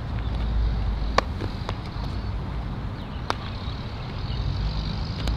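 Two sharp cracks of a baseball impact, one a little over a second in and a fainter one about two seconds later, over a steady low rumble of wind on the microphone.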